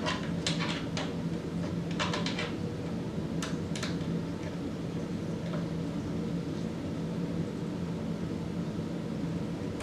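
Steady hum of a running air conditioner, with a few light metallic clicks and scrapes in the first four seconds as small screws are started by hand into a bike repair stand's tool tray.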